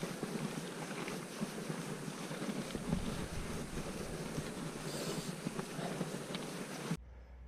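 Mountain bike in motion: tyres rolling over gravel and dirt with small rattles from the bike, and wind buffeting the action camera's microphone. The noise cuts off suddenly near the end.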